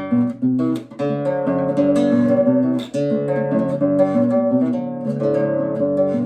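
Acoustic guitar played fingerstyle in a rhythm of bass notes alternating with chord strokes. Sharp percussive strokes come among the notes, where the chords are damped with the hand.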